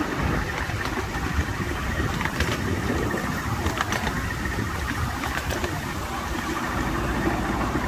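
A 7¼-inch-gauge ride-on miniature railway train rolling along its track, heard from a passenger car as a steady low rumble with a few faint clicks.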